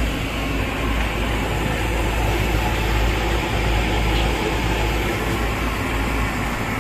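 Steady background rumble and hiss of a busy street-food stall's surroundings, even throughout with no distinct events.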